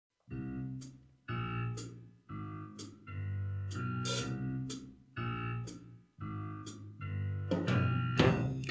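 Swing band playing a jazz arrangement: a run of held band chords, each about a second long with short breaks between, over drum kit and cymbal strokes, then growing busier and louder near the end.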